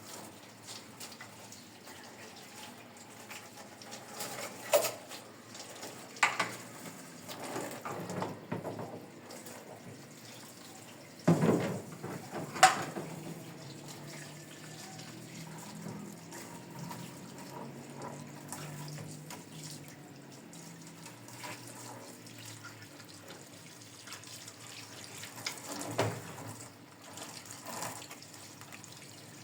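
Water running steadily from a tap while dishes are washed, with occasional clinks and knocks of crockery, the loudest a pair about a third of the way in and another near the end.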